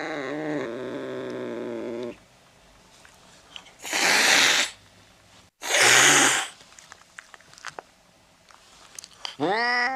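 Domestic cat meowing: a long drawn-out meow ends about two seconds in, and a new meow starts near the end. Between them come two short, loud noisy bursts, each under a second long and a little under two seconds apart.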